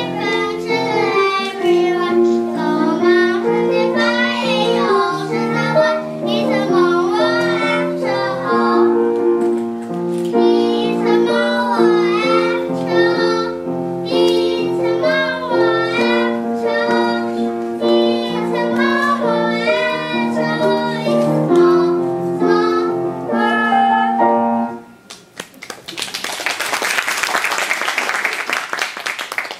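Children singing together in unison with piano accompaniment. The singing and piano stop about 25 seconds in, followed by a few seconds of applause.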